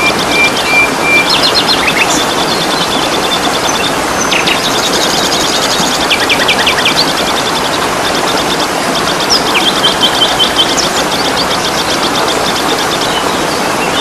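Steady rush of falling water with several songbirds calling over it: fast high trills and repeated chirps, and a short run of quick downward-sweeping notes about six seconds in.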